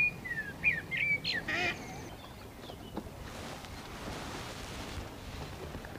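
Ducks quacking: a quick run of several short calls in the first two seconds, then only faint outdoor background.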